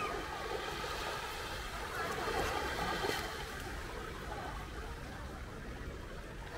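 Small waves lapping on a sandy beach in a calm sea, a steady wash of water.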